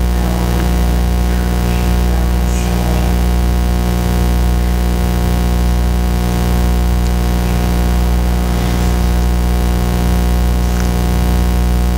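Loud, steady electrical mains hum with a dense stack of overtones, unchanging throughout.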